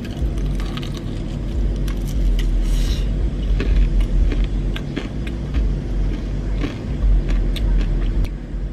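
Close-up crunching and chewing of the crispy fried skin of a Popeyes chicken wing, a string of sharp irregular crunches, over a steady low rumble inside a car.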